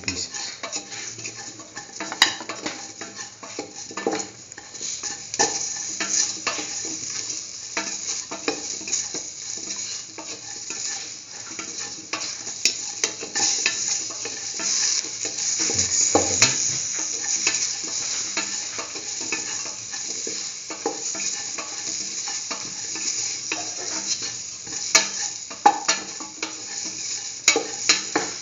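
Chopped chayote, onion and shallots sizzling in oil in a metal pan as they are stirred, with a steady hiss and frequent irregular scrapes and knocks of the stirring utensil against the pan.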